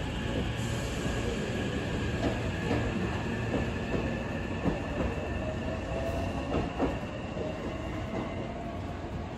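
Hankyu 5300-series electric train running slowly along the platform: a steady high whine with scattered irregular clicks and knocks of the wheels over rail joints.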